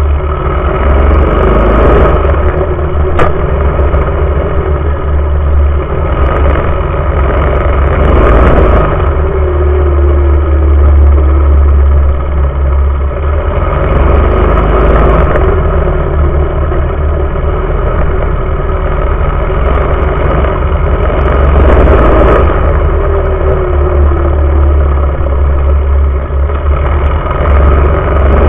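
Home-built mini bike's small engine running hard at speed, revving up and easing off every several seconds, with a heavy wind rumble on the microphone.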